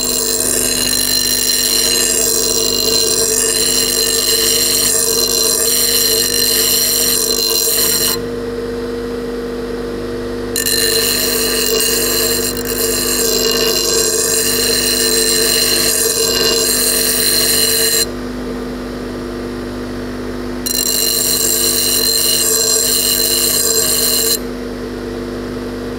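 Small bench grinder running with a steady hum while a steel spot-weld chisel is held to the wheel to bevel its tip, in three long grinding passes; the grinding noise stops twice, and again near the end, as the chisel is lifted off while the motor keeps humming.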